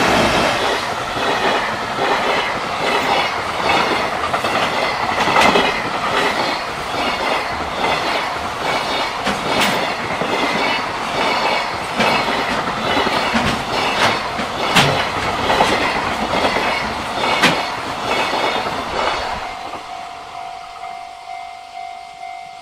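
Container freight train hauled by an EF210 electric locomotive passing close by: a steady rumble with a rhythmic clickety-clack of wheels over rail joints and a few sharper clanks. It fades as the last wagon passes near the end, leaving a level-crossing alarm bell ringing in a steady rhythm.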